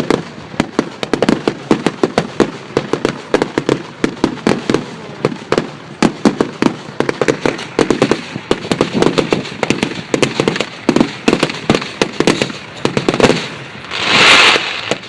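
Firework display going off: a rapid, continuous string of sharp bangs and crackles, several each second, with a louder rushing burst near the end.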